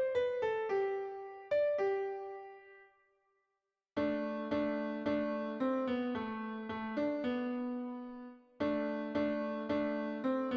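Instrumental keyboard music with a piano-like tone. A sparse line of single decaying notes dies away to silence about three seconds in. About four seconds in it starts again with fuller chords played under the melody.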